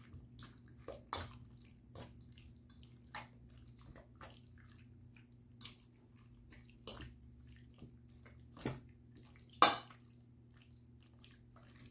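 Hands mixing raw chicken pieces with oil and spices in a stainless steel bowl: irregular wet squelches and small taps against the bowl, with a louder clack near the end. A faint steady hum runs underneath.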